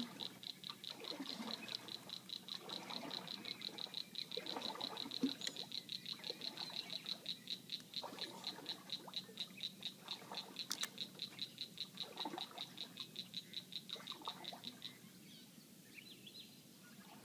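A small animal calling: a steady series of high-pitched chirps, about five a second, that stops near the end.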